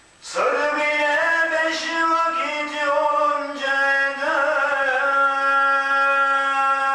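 A single man chanting a melismatic Turkish mevlid-style religious recitation, unaccompanied. His voice comes in suddenly just after the start, winds through ornamented runs, then settles into one long held note from about five seconds in.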